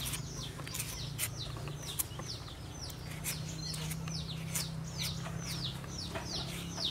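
Chicks peeping: a steady run of short, high calls that each fall in pitch, about two or three a second. Sharp scrapes of a metal peeler on green mango and a low steady hum come through underneath.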